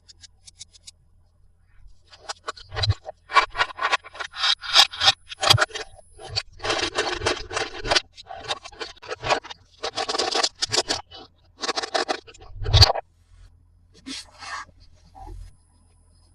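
Toy packaging being opened by hand: a quick run of scraping, scratching strokes from about two seconds in until about thirteen seconds, then a few fainter ones.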